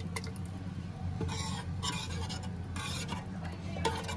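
A ladle stirring thick dal makhani in a nonstick pan, with several short scraping strokes against the pan over a steady low hum.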